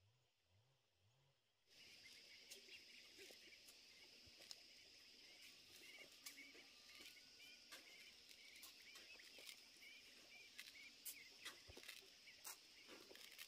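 Faint rural outdoor ambience that starts abruptly about two seconds in: a steady high insect drone with small bird chirps and scattered light clicks over it.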